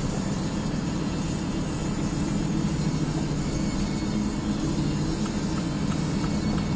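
Steady engine and tyre noise inside the cabin of a car driving along a main road.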